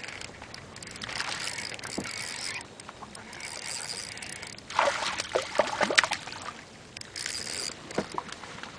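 Water splashing and lapping against the side of a boat in uneven spells, with a louder run of splashes about five seconds in.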